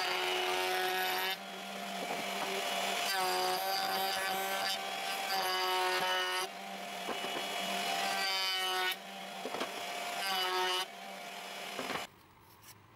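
Table-mounted wood router running, its bit rounding over the edges of a wooden block in several passes: each cut is louder, with quieter running between them. The router is switched off about 12 seconds in and the sound cuts out.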